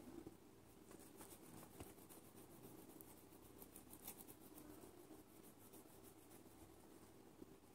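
Faint scratching of a felt-tip marker stroked back and forth across the glossy back of a phone case: a run of quick, light strokes.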